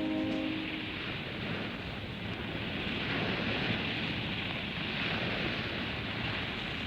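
Steady rushing noise of wind and sea waves, with the last held chord of orchestral music dying away in the first half second.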